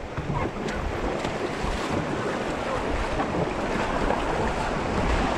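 Rushing river water around an inflatable raft on the move, with wind buffeting the microphone; the rush grows slightly louder as it goes.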